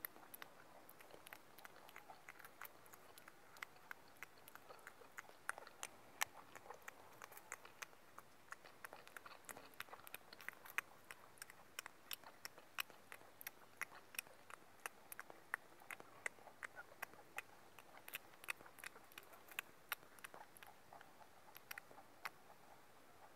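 A white rabbit crunching and chewing a crisp snack: quiet, quick little crunches, a few each second, all the way through.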